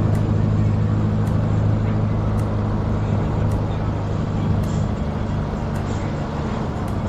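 Mikrolet minibus ride heard from inside: the engine drones steadily over road noise, with faint clicks about once a second.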